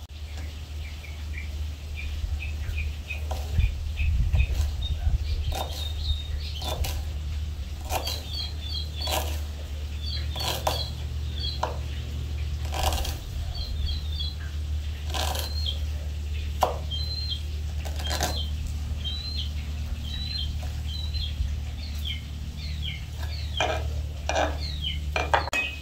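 Kitchen knife chopping onions on a wooden cutting board: irregular knocks of the blade hitting the board. Small birds chirp over and over in the background, and a steady low hum runs underneath.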